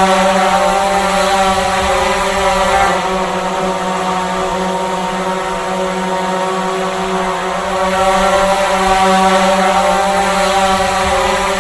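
Drone flying, its propellers giving a steady multi-tone buzzing hum that swells a little louder near the start and again about eight seconds in, with slight shifts in pitch as it manoeuvres.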